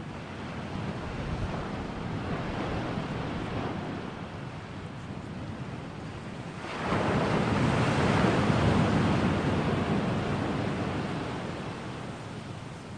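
Ocean surf, a steady rush of water with a wave surging in suddenly about seven seconds in and slowly washing away.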